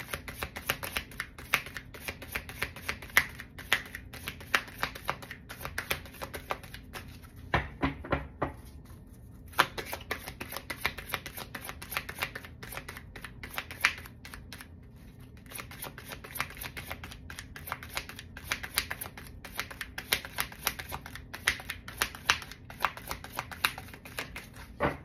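A deck of tarot cards being shuffled by hand: a fast, continuous patter of card clicks, pausing briefly about nine seconds in and again near the middle.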